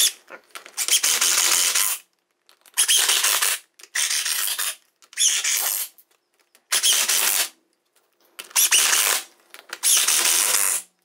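Electric impact driver running down the aluminium transfer case's bolts in about seven short bursts, each about a second long with short pauses between, as the case halves are tightened in a star pattern.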